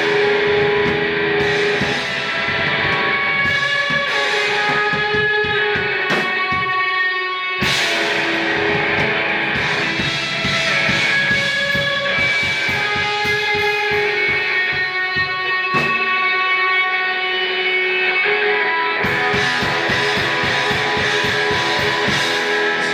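Rock band playing electric guitar over a drum kit. About six seconds in the drums and low end drop out, and a second or so later the full band comes back in with a loud hit.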